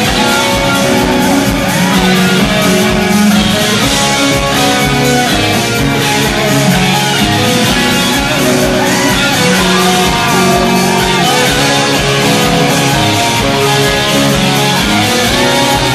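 Live rock band playing loudly: electric guitar over a steady drum beat and bass, the guitar bending notes up and down.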